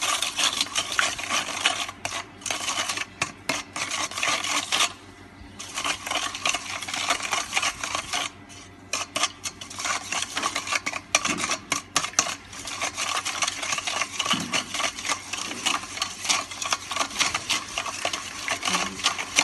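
A metal utensil beating raw eggs in a stainless steel bowl: fast, rhythmic clinking and scraping against the bowl's sides, with a short pause about five seconds in and another briefly near the middle.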